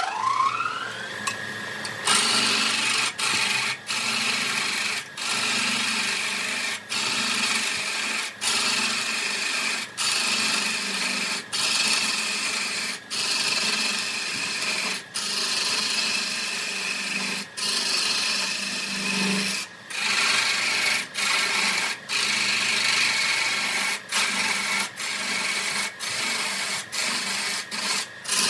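Wood lathe motor whining up to speed, then a turning tool cutting into the spinning wood with a steady scraping hiss. The hiss is broken by short breaks every second or so.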